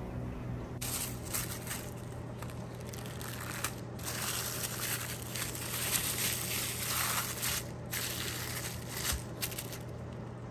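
Thin plastic film crinkling and crackling as it is pulled and pressed by hand over a silicone tray, starting about a second in and going on with many short crackles. A faint steady low hum lies underneath.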